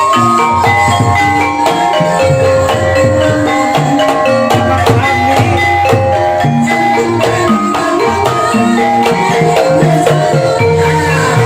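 Live ebeg accompaniment music: interlocking mallet-struck keyed instruments of a Javanese gamelan-type ensemble playing a busy, even melody with drums underneath.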